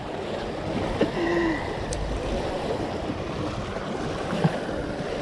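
Small waves lapping and splashing against the boulders of a rock breakwater, a steady wash of water noise.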